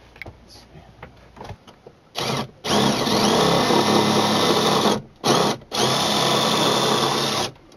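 Cordless drill boring into wooden attic framing. It gives a short burst about two seconds in, then runs for a couple of seconds, stops briefly with a quick blip, and runs again for nearly two seconds before cutting off.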